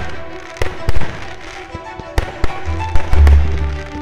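Fireworks going off: several sharp bangs and cracks, the loudest about a second in, with a low rumbling boom around three seconds in. Music plays underneath.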